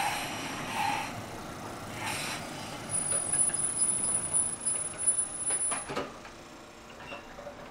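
Waggon Union GT8 articulated high-floor tram pulling away and rolling past on the rails, with a few short knocks. A thin, very high steady squeal sounds for about three seconds in the middle, and the sound falls away after about six seconds as the tram moves off.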